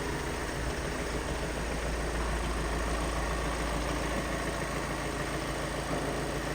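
VW T6 Transporter's 2.0 TDI four-cylinder diesel engine idling steadily.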